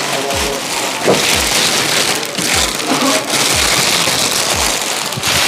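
Thin clear plastic sheeting crinkling and rustling steadily as it is pulled off a flat-screen TV.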